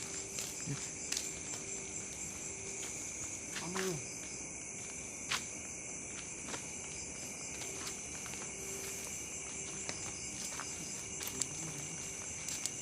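Crickets and other night insects chirring steadily in two high-pitched bands, with scattered sharp clicks and a brief low voice-like sound about four seconds in.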